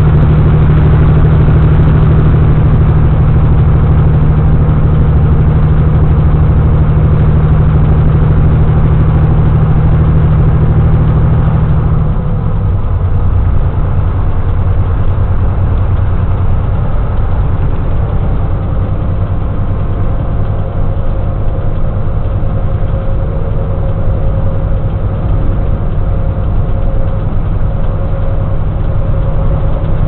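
Engine and road noise of a vehicle at highway speed, heard from inside the cab: a loud, steady low drone. About twelve seconds in, the engine note drops lower and a little quieter, then holds steady.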